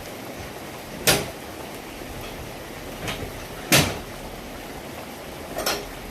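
Sharp knocks over a steady background hiss: two loud ones, about a second in and near four seconds in, and fainter ones around three seconds and near the end.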